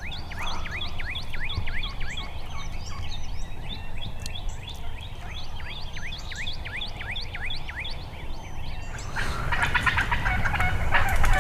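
A songbird sings a fast run of down-slurred whistled notes, about three a second, over wind rumble on the microphone. Near the end a louder rattling, crackling noise comes in.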